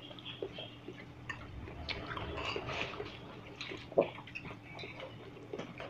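Mukbang eating sounds: chewing on saucy jjajangmyeon noodles and a metal fork stirring and clicking in a ceramic bowl, with many small wet clicks and one louder short sound about four seconds in.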